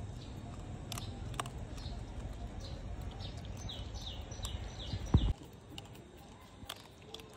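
Outdoor ambience with a steady low rumble of wind on the microphone and a few sharp clicks. A bird calls a quick run of about six short falling chirps. Near the middle there is a loud thump, after which the rumble drops away.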